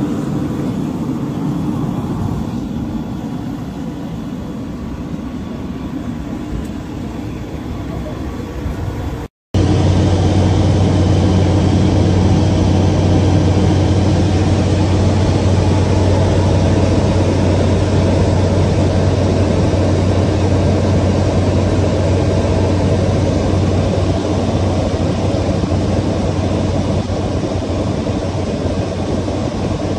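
Steady engine noise on an airport apron, then, after a sudden cut about nine seconds in, the louder steady drone of a small high-wing propeller plane's engine heard from inside the cockpit in flight.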